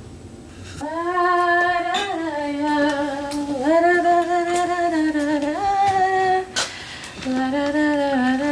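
A woman humming a slow tune without words, holding long steady notes, with a short pause about two-thirds of the way through before she carries on.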